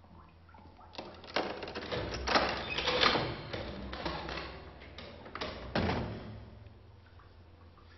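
Metal clicking and clattering of a cell door's hatch and lock being worked, ending in a heavier clunk as the door unlatches and swings open just before six seconds in.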